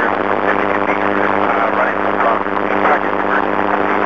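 Loud, steady radio static with a low hum, a faint voice barely coming through it: the amateur radio downlink from the International Space Station with a weak signal.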